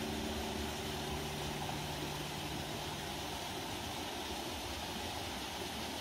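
Mountain stream running steadily over granite rocks, a small cascade spilling into a pool: an even rushing of water.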